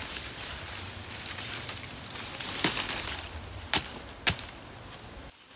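Dry weeds and brush being cleared by hand: continuous rustling and crackling of dry stems and leaves, with three sharp cracks in the second half.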